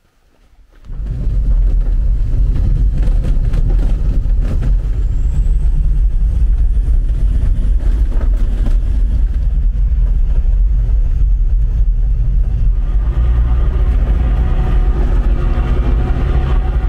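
Motor vehicle on the move: a loud, steady, deep rumble of engine and road noise that starts suddenly about a second in.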